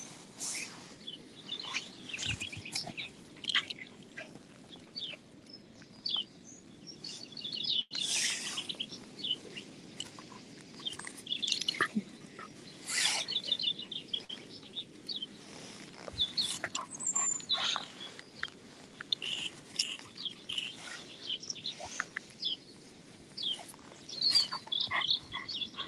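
Songbirds singing: many short high chirps and rapid trills, several birds calling over one another. A few brief louder noises stand out, about eight and thirteen seconds in.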